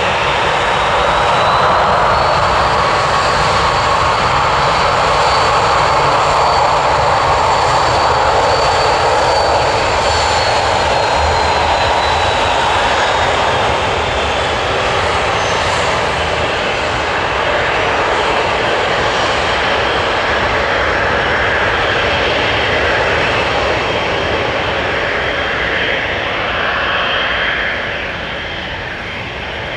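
Airliner engines running loud and steady, a thin high whine over a broad rush; the whine rises slightly a couple of seconds in and sinks again around the middle, and the sound fades somewhat near the end.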